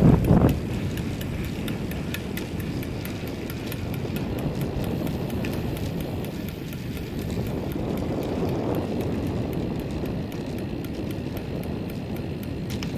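Wind rushing over the microphone and rolling road noise while moving along with a cyclist, louder for a moment right at the start. A light, regular ticking runs along with it at about four ticks a second.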